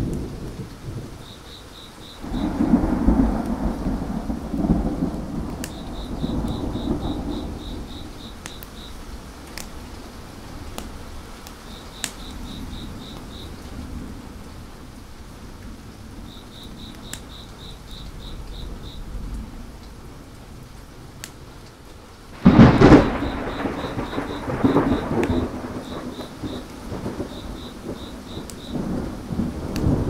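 Thunder over steady rain: a rolling rumble starts about two seconds in, and a sudden, sharper clap about three-quarters of the way through rolls off slowly. Crickets chirp in short trains throughout, with scattered light crackles of a wood fire.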